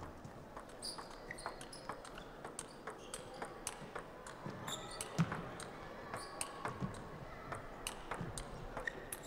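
Table tennis rally: the ball clicks back and forth off the bats and the table, about two to three sharp knocks a second, over a faint hum from the hall.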